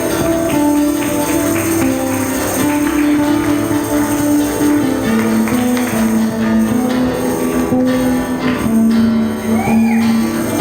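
Live acoustic band playing: strummed acoustic guitars over a steady cajón beat, with held chord notes changing every second or so.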